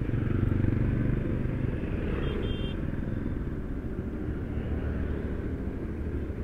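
Motorcycle engine running at low revs while the bike rolls slowly, louder in the first second and a half, then settling. Street traffic is around it, with a brief faint high beep about two seconds in.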